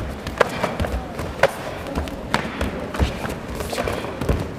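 Full-contact karate sparring: about half a dozen irregular sharp thuds of punches and kicks landing on padded chest protectors, with bare feet stamping and shuffling on tatami mats.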